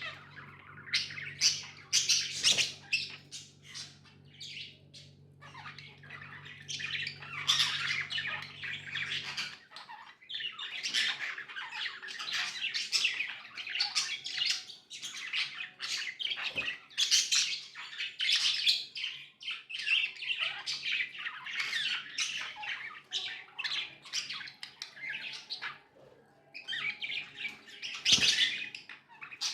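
Budgerigars chattering: a dense run of rapid chirps, squeaks and short squawks with hardly a break. A low steady hum underneath stops about a third of the way through.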